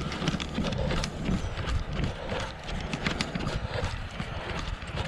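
Footsteps of a person walking a dog on a concrete sidewalk, picked up by a body-worn camera: a steady thud about twice a second, with light clicks in between.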